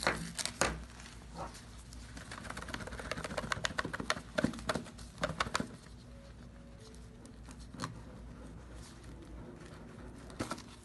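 Crinkling and crackling of plastic shrink wrap as it is peeled and rubbed off a cardboard phone box, in quick runs of small ticks, busiest in the middle and sparser near the end.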